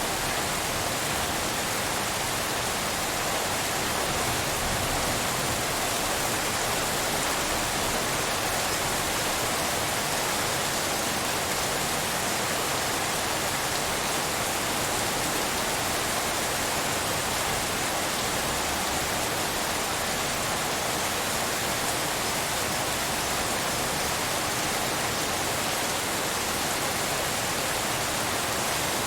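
Steady rain falling on leaves: a dense, even hiss of drops with no change in level.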